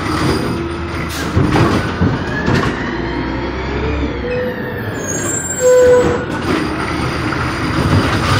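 Automated side-loading garbage truck at work: engine running under a whine that rises and then falls over a few seconds, with scattered metal clanks and knocks. A short squeal about six seconds in is the loudest moment, as the lifting arm goes up for a cart.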